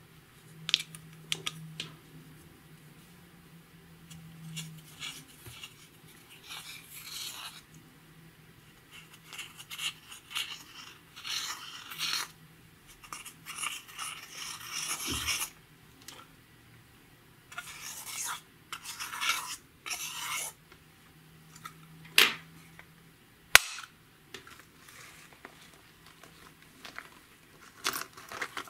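Slime being squished, stretched and pressed by hand, in crackly bursts a second or two long with a few sharp pops; two loud sharp pops come about three quarters of the way through.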